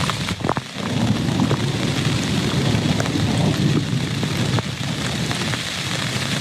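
Steady heavy rain with scattered drops striking close by, over a low rumble of distant thunder.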